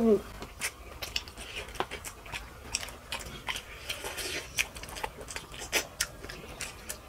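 Close-miked eating sounds of rice and fish curry eaten by hand: chewing and wet mouth smacks, heard as irregular small clicks.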